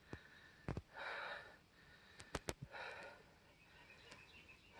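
A hiker's breathing while climbing a trail, a soft breath about every two seconds. A few sharp clicks, one near the start and a quick cluster about two and a half seconds in.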